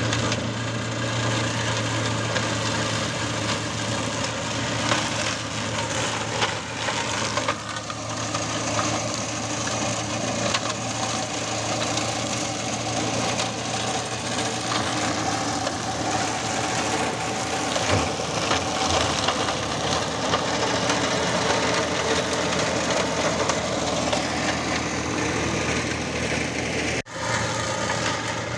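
John Deere tractor running steadily while its rear-mounted flail mulcher with roller shreds piled olive pruning branches, the engine under the noise of wood being chewed up. A brief drop-out near the end.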